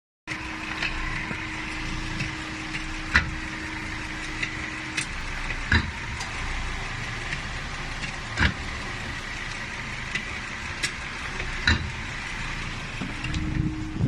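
Volvo V70 running with a steady hum, with four sharp clunks a few seconds apart as gears are changed. The owner takes the clunks for drive shaft noise.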